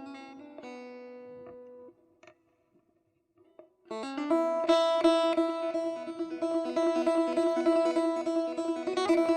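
Instrumental music on plucked string instruments: notes ring and fade away, a near-silent pause of about two seconds, then a fast-picked melody with held notes comes in about four seconds in.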